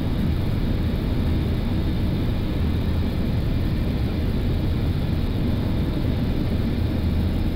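Steady flight-deck noise of an Airbus A330-200 on short final approach: a constant low rumble with a hiss above it, unchanging throughout.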